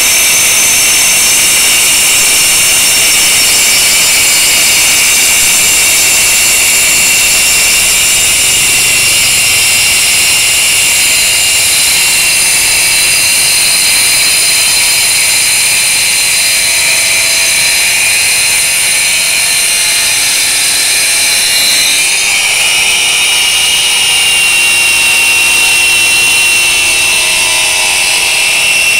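Boda brushless twin-blade wall chaser running under load as its two blades cut a groove into a brick wall. It makes a loud, steady, high-pitched whine over grinding noise, and the pitch sags a little about two-thirds of the way through.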